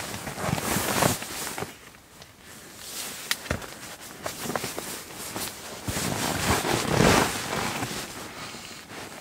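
Rustling and crinkling of a down sleeping bag and an air sleeping pad as a person shifts, pulls the bag up and settles his head on the pillow, with a few sharp clicks about three seconds in. The rustling is loudest around six to seven seconds in and dies down near the end.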